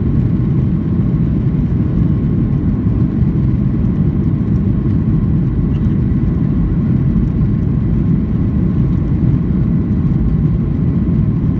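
Steady engine and rolling rumble heard from inside the cabin of a Boeing 737-800 moving along the ground, its CFM56 jet engines running with a faint steady whine above the low rumble.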